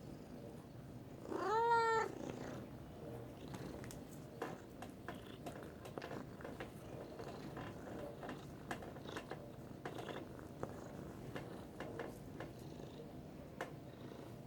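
A domestic cat gives one short meow about a second in, rising then falling in pitch, then purrs steadily, with scattered faint clicks.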